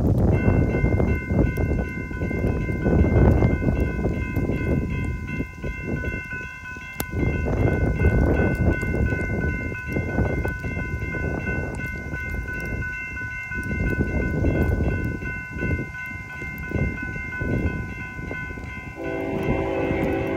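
Railroad crossing signal bells start ringing a moment in, a steady high clanging that keeps on as the crossing gates come down. About a second before the end, a diesel locomotive's air horn joins in.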